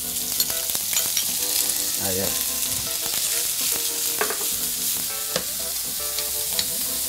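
Diced bacon lardons sizzling in hot oil in a non-stick frying pan, just added to be crisped. A metal spoon stirs them, with scattered sharp ticks over the steady sizzle.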